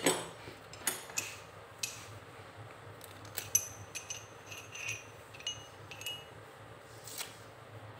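Nachi steel drill bits being handled, clinking against one another and a hard surface: faint scattered clicks, some with a short high metallic ring.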